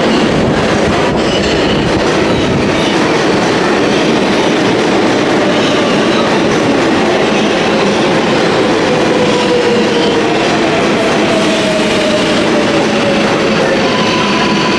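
A New York City Subway 7 train pulling into an underground station: loud, steady running noise of steel wheels on rail with clattering. A whine falls in pitch as the train slows.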